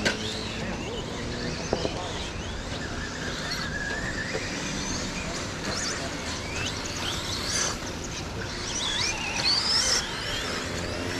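Electric 2wd RC stadium trucks racing, their motors whining and sliding up and down in pitch as they accelerate and slow around the track, over a steady outdoor noise. A sharp knock just under two seconds in.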